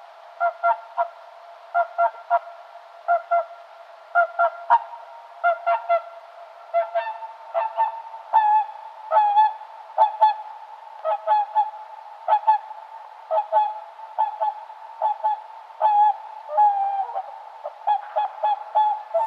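Swan honking: a long series of short, nasal calls, many in quick pairs, coming one after another without a break.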